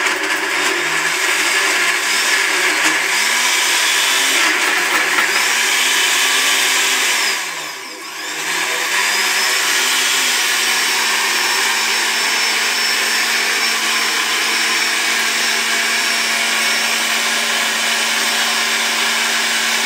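Countertop jug blender running, churning a thick chickpea and avocado hummus mixture. Its sound dips briefly about eight seconds in, then it runs steadily again.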